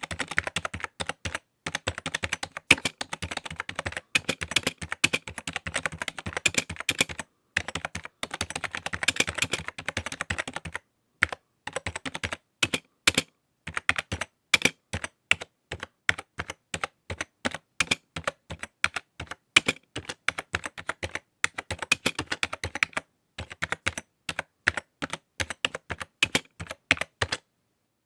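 Typing on a computer keyboard: dense runs of quick keystroke clicks broken by a few short pauses, slowing to more spaced-out keystrokes about halfway through.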